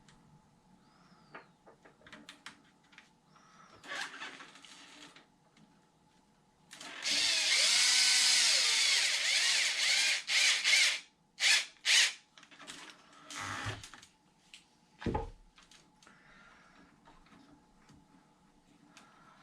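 Small cordless power drill/driver running for about four seconds with its motor speed rising and falling, then two short trigger pulls. Scattered clicks of tool handling and a dull thump come before and after.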